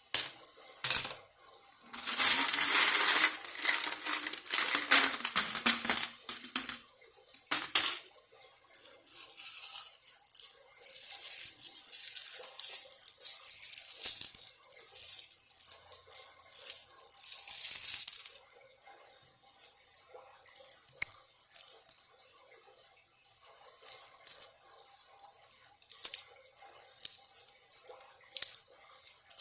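Coins from a piggy bank jingling and clinking as they are handled and sorted, in two long spells of continuous jingling. Then, for the last third, they are set down one or a few at a time as separate clicks.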